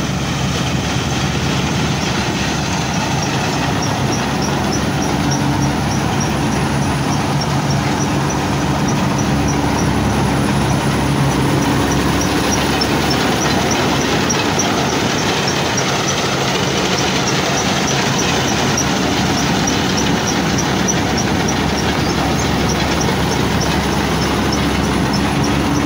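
Massey Ferguson MF 186 combine harvester running at work, cutting and threshing wheat: a loud, steady drone of engine and threshing gear. From about four seconds in, a light, high ticking comes through it at roughly three ticks a second.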